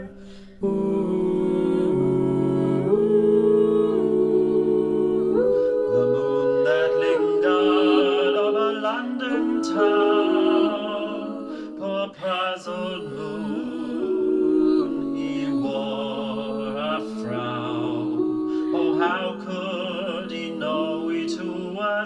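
Five-voice a cappella ensemble (soprano, two altos, tenor and bass) singing in harmony, its chords held and then moving together step by step, with a brief break about half a second in.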